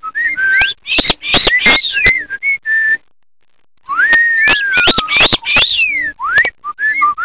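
Pet galah whistling a run of rising and falling glides mixed with sharp clicks. After a pause of about a second comes a long descending whistle.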